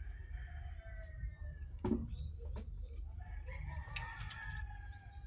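Chickens calling, with long drawn-out calls like a rooster's crow in the second half, over a steady low rumble. A sharp knock comes about two seconds in and another near four seconds.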